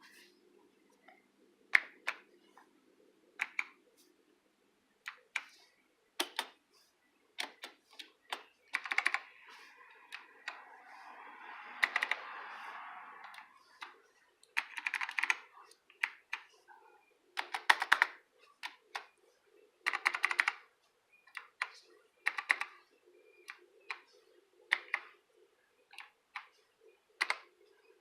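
Keyboard with clicky white Alps switches being pressed by a toddler: irregular clusters of sharp key clicks separated by short pauses. A softer continuous rushing sound lasts about three seconds near the middle.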